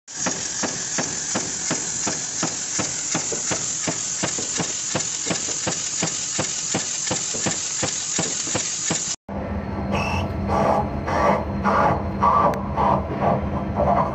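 Power press stroking rapidly on sheet-metal strip, an evenly spaced sharp clack about three times a second. It cuts off abruptly about nine seconds in and is replaced by a steady machine hum with an irregular pulsing grind, a CNC lathe turning steel bar stock.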